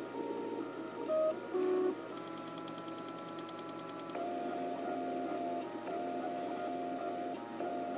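MakerBot dual-extruder 3D printer's stepper motors whining at pitches that jump every fraction of a second as the build platform moves under the nozzles. There are two louder notes about a second in and a long steady higher tone from about two to four seconds in.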